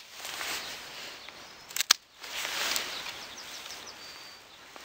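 Hand secateurs snipping rose canes: two sharp snips in quick succession a little under two seconds in, with the rustle of the cut stems being handled before and after.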